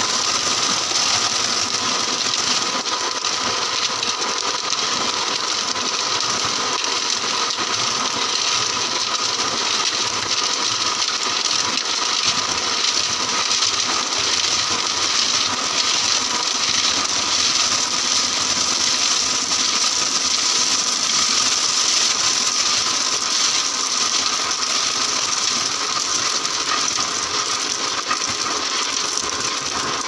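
Small electric tilting-drum concrete mixer running as it discharges wet concrete, with a steady whine from the machine and a continuous gritty rattle of gravel and concrete tumbling out of the turning drum.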